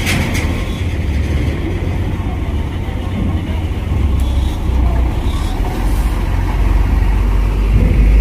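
Low, steady rumble of heavy vehicles running, buses and trucks idling in the queue to board a ferry.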